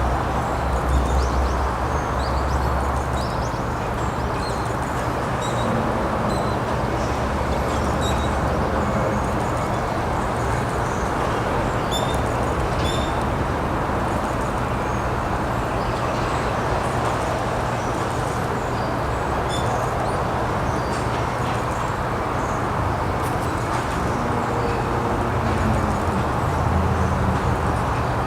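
Steady outdoor background rush with a low hum underneath, and brief high bird chirps scattered through it.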